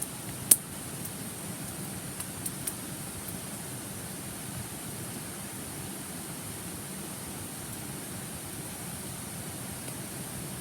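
Campfire wood crackling: one sharp loud pop about half a second in and a few smaller snaps a couple of seconds later, over the steady rush of a stream.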